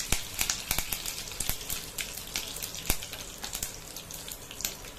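Mustard and cumin seeds crackling and popping in hot oil with fresh curry leaves sizzling: a tadka spluttering. Irregular sharp pops, several a second, over a steady hiss of frying.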